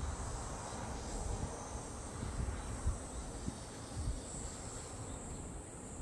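Insects trilling, a steady high chirring, over wind rumbling unevenly on the microphone.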